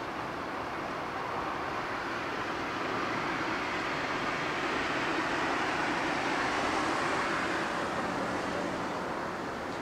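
A passing vehicle: a broad rushing noise that swells to a peak about six to seven seconds in, then fades.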